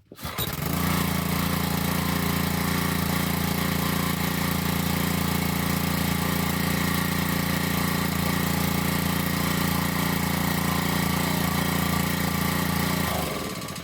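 Honda GC190 single-cylinder pressure-washer engine starting, running steadily on its own with its vacuum fuel pump reconnected, then shut off and spinning down near the end. The pressure pump has no water hooked up, so it is shut off to keep it from burning up.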